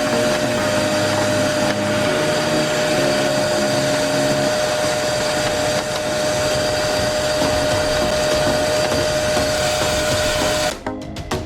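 A workshop machine or air jet running steadily: a loud, even rush with a constant whine, cutting off sharply near the end.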